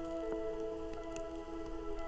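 Soft background music: held, sustained notes that change every half second or so, with a few faint ticks.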